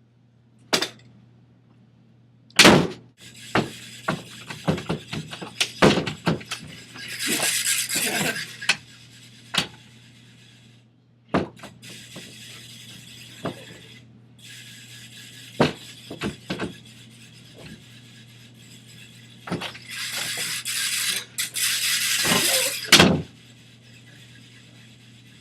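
A string of sharp knocks, thuds and crashes, like something being hit and smashed, with two longer bursts of harsh hiss, one a few seconds in and one near the end.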